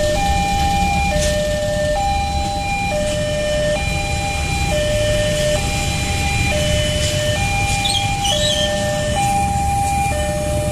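Level crossing's electronic warning alarm sounding a two-tone high-low signal, each tone held just under a second, over the low rumble of waiting road traffic. It signals that the crossing is closed for an approaching train.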